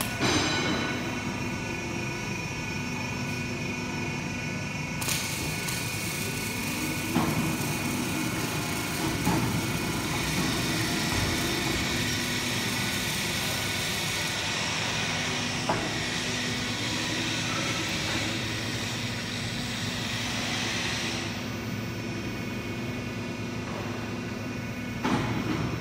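Hydraulic plate flip machine running, its pump motors giving a steady hum while the steel tilting arms move, with a few metallic knocks. A strong hiss comes in about five seconds in and fades out after about twenty seconds.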